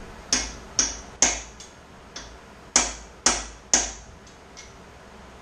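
Hammer striking a chisel against a seized bolt on a Mazda Miata engine, sharp metal-on-metal blows with a short ring. The blows come in two bursts of three, about half a second apart, with a few lighter taps between and after.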